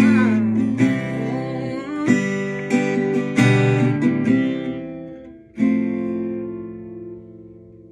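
Acoustic guitar strumming chords about a second apart. The last chord, struck about five and a half seconds in, is left to ring and slowly fade as the song ends.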